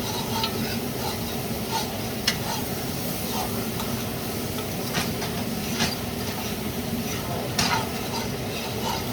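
Food sizzling steadily in a frying pan, with a cooking utensil clicking and scraping against the pan a few times.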